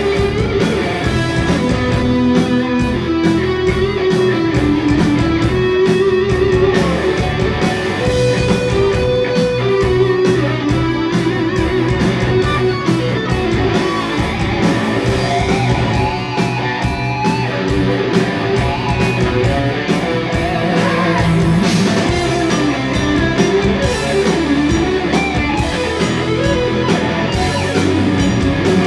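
Heavy metal band playing live, an instrumental passage: distorted electric guitars with a moving lead guitar melody over drums and bass, with no vocals.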